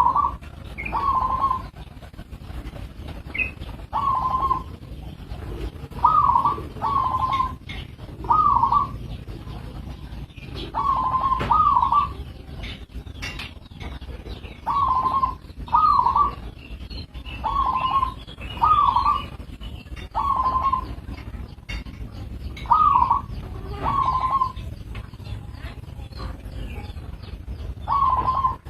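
Zebra dove (perkutut) cooing: a long series of short coo phrases, often in pairs, one every second or two. Faint chirps of other small birds and a low steady rumble sit underneath.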